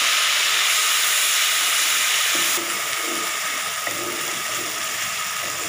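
Ground onion paste sizzling in hot oil with cumin seeds in a kadhai, a loud, even hiss that drops to a softer sizzle about two and a half seconds in as it is stirred with a wooden spatula.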